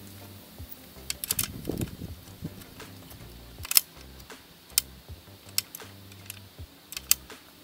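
Irregular sharp clicks and light knocks, about a dozen, the loudest a little under four seconds in, with a brief low rumble near two seconds: small things being handled at a wooden saw stand, with no saw running.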